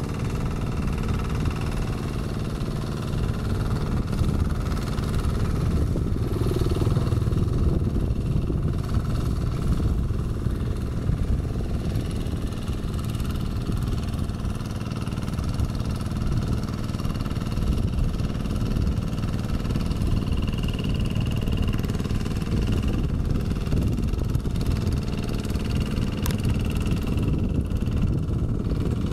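Kubota RD110Di-2T single-cylinder diesel engine of a two-wheel hand tractor running steadily under load while rotary tilling wet paddy mud.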